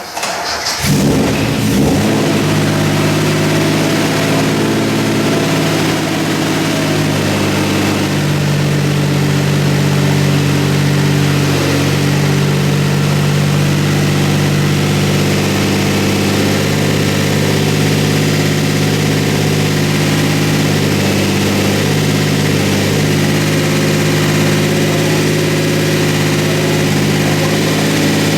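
The rebuilt L26 straight-six of a 1974 Datsun 260Z catches and fires on its first start after the rebuild, rough for the first couple of seconds, then runs steadily at idle.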